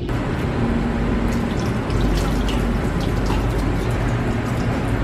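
Tap water running and splashing into a stainless steel sink, a steady rush that starts suddenly.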